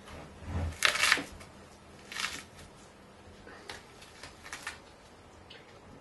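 Short, irregular handling noises of a dry-aged beef rib eye's cap being peeled away from the meat by hand, the loudest cluster about a second in, then a few fainter ones.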